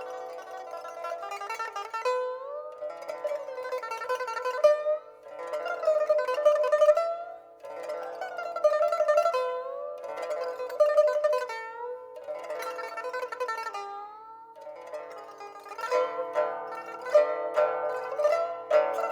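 Background music: a plucked-string melody in phrases, with notes sliding up and down in pitch.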